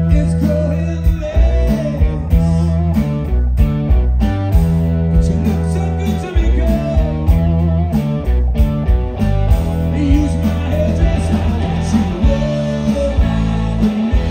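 Live blues-rock band playing loud: distorted electric guitar, bass and drums keeping a steady beat, with a male voice singing over it.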